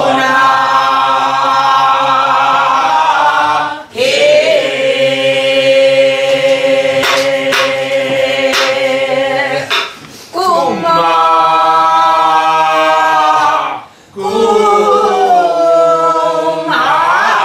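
A woman singing a Namdo folk song with a buk barrel drum: long held notes that bend up and down in pitch, with pauses for breath about four, ten and fourteen seconds in. A few sparse knocks, most likely drum strokes, sound near the start and in the middle.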